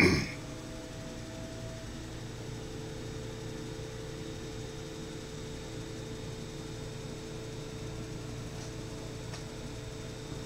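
A short, loud knock right at the start, then a steady machine hum with a few steady tones running on unchanged.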